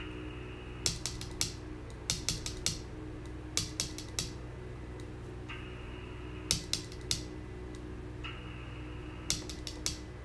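A hand Morse key sending CW on a PRC-320 military radio: five short bursts of sharp, irregular clicks. Between bursts a hiss cuts in and out.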